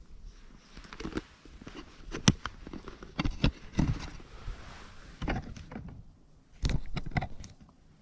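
Irregular close knocks, clicks and rustles, about ten in all, the sharpest about two seconds in.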